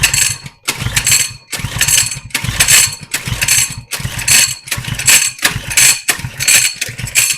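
Coleman 100cc minibike engine being cranked with its recoil pull starter, about ten quick pulls in a row. The engine turns over with each pull but does not catch.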